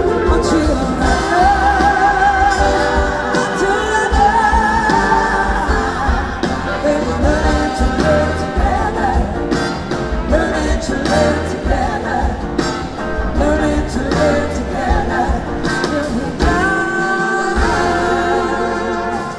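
Live rock band playing: electric guitar, bass and drums under a female lead vocal sung with a wide vibrato, with backing singers.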